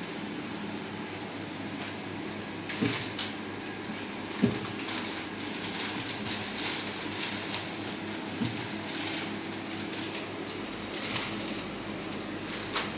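Clear plastic bag crinkling as packets of snacks are taken off metal shelves and dropped in, with a few sharp knocks, loudest about four and a half seconds in. Underneath runs a steady machine hum.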